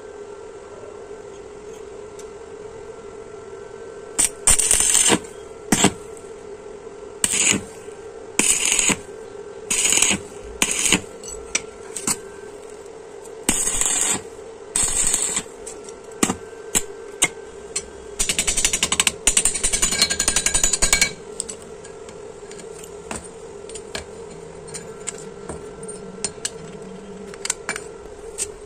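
Stick (arc) welding, tack-welding steel pipe rings onto a steel plate: a series of short crackling bursts, each about half a second to a second long, then one longer weld of about three seconds, after which only scattered light clicks remain. A steady hum runs underneath.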